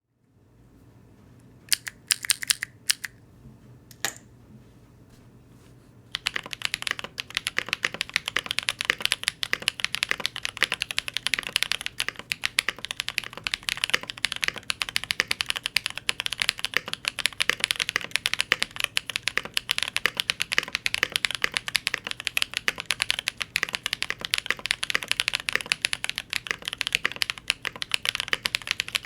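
Mechanical keyboard typing on a Devastating TKL with YOK Holy Panda tactile switches, PBT keycaps, an FR4 plate and PE foam. A few separate key presses come in the first four seconds, then fast, continuous typing from about six seconds in.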